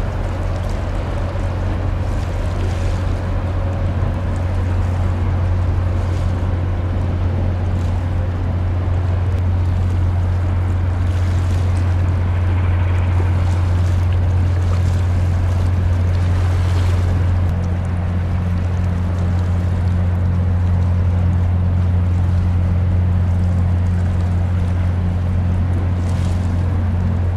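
Steady low drone of a ship's engines, with a wash of water and wind noise over it. About two-thirds of the way through, a second, higher hum joins the drone.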